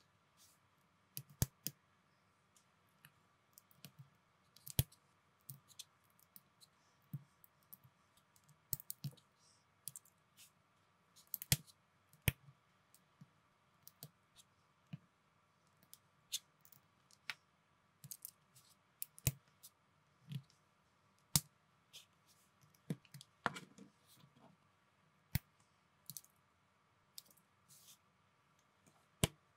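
Small plastic Lego-compatible minifigure pieces clicking as they are handled and snapped together by hand: irregular sharp clicks, roughly one a second.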